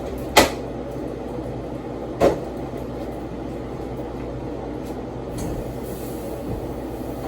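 Steady low household hum, broken twice by a short sharp sound, about half a second in and again about two seconds in.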